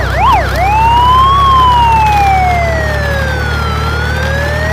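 Toy ambulance's electronic siren: a fast yelp that switches about half a second in to a slow wail, rising, falling and rising again, over a steady low hum.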